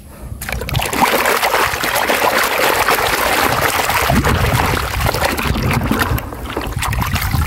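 Muddy water splashing and sloshing in a plastic basin as a hand swishes a toy mask around to wash it, starting about half a second in.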